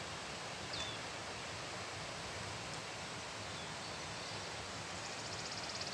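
Wood warbler singing, faint over a steady rustling hiss: near the end comes its rapid high trill of evenly repeated notes, the spinning-coin ending of the song.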